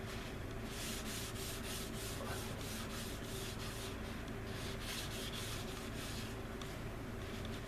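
Hand sanding on a resin scale-model part: quick back-and-forth strokes, about three or four a second, with a short pause in the middle, stopping a little before the end, over a steady low hum.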